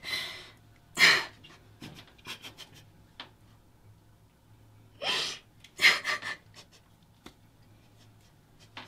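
A woman sniffing hard through her nose in short, sharp bursts: two about a second apart at the start, a few smaller ones, then another pair about five to six seconds in.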